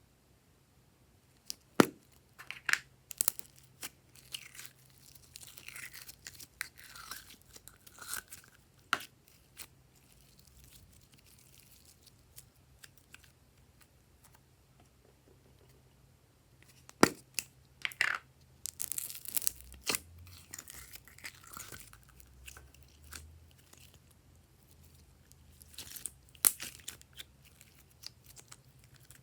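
Glossy slime being worked by hand, in bursts of sticky crackling and sharp pops, with quiet pauses between three bouts.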